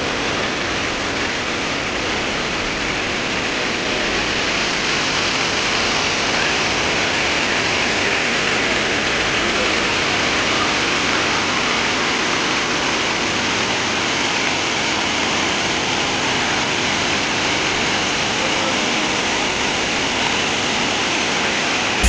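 Waterfall: water pouring over a rock face into a pool, a steady, even rush that grows slightly louder a few seconds in.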